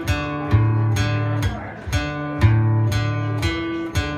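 Acoustic guitar strummed about twice a second, each chord ringing until the next stroke.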